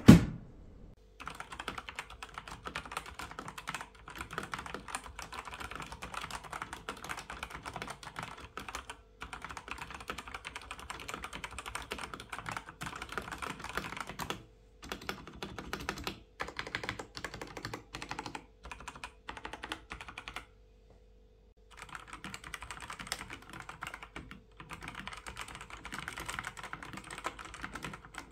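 Fast typing on a Genesis Thor 230 TKL mechanical keyboard fitted with Outemu Brown tactile switches: a dense run of key clacks broken by short pauses, opening with a single loud knock. After a brief silence about 21 seconds in, the typing goes on on the Outemu Red linear-switch version.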